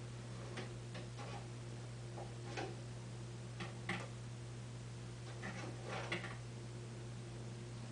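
Scattered light clicks and taps, irregular, with small clusters about 2.5, 4 and 6 seconds in, over a steady low hum.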